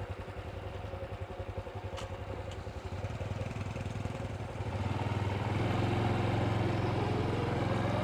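Honda CT125 motorcycle's 125 cc air-cooled single-cylinder four-stroke engine running at low revs, then pulling away: it gets louder about three seconds in and again about five seconds in, with its pitch rising steadily as it gains speed.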